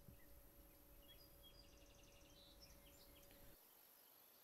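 Near silence: faint outdoor ambience with a few faint bird chirps in the middle, and a faint steady hum that stops about three and a half seconds in.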